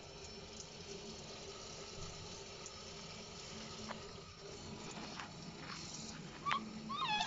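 Faint steady running water, like a tap running into a sink, during a puppy's bath. Near the end the wet puppy gives a couple of short, high, falling whines.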